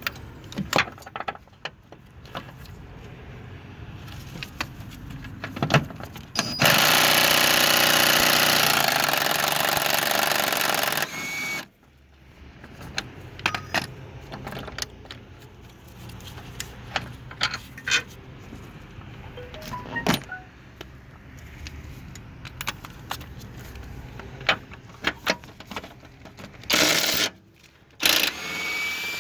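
Metal tools and parts clinking and knocking during engine work, with a loud steady hiss lasting about four and a half seconds about a third of the way in and two short hisses near the end.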